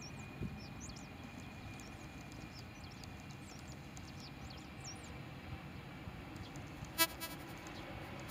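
Steady low rumble of a distant jet airliner taking off, with birds chirping over it throughout. A brief honk-like toot about seven seconds in.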